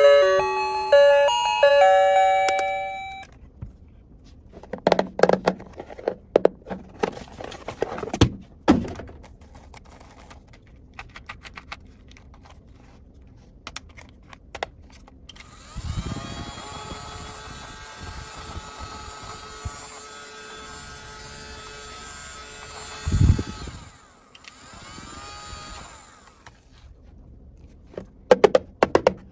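Toy kitchen playset's electronic chime tune ending about three seconds in, followed by clicks and knocks of plastic toy pieces being handled. Later a steady electronic sound effect plays for about seven seconds, and there are more clicks near the end.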